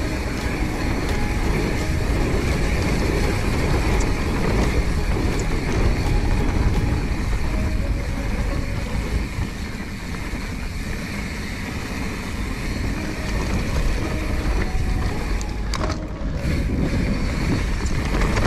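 Mountain bike riding down a dirt trail: wind rushing over the camera microphone over the tyres rolling on dirt and the bike rattling.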